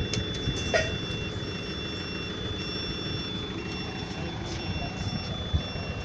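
Steady vehicle engine rumble with an electronic warning beep repeating about once a second over a continuous high tone, like a vehicle's reversing alarm.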